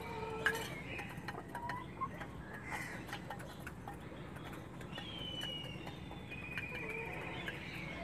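Desi Golden Misri hens pecking grain from a shallow clay feeding dish, with scattered sharp beak taps. A few thin, high calls glide down in pitch over them, one about five seconds in.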